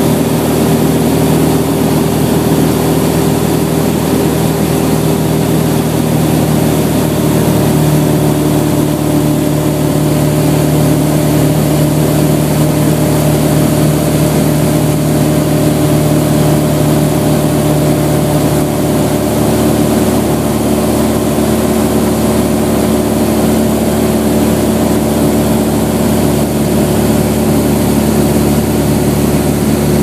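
Light aircraft's piston engine and propeller droning steadily, heard from inside the cabin, with the engine note shifting slightly about eight seconds in and again about nineteen seconds in.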